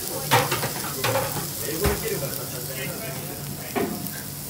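Lamb slices and onion sizzling steadily on a ridged, domed cast-iron Genghis Khan (jingisukan) grill pan, with a few sharp knocks and faint voices in the background.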